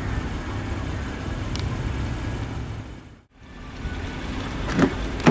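Steady outdoor traffic hum, broken briefly at a cut. Near the end, two sharp clicks as a BMW X5's door handle is pulled and the door latch releases.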